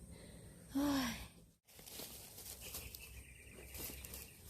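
A woman's short sigh, falling in pitch, about a second in, followed by a brief dropout and then faint outdoor background with a thin, steady high buzz.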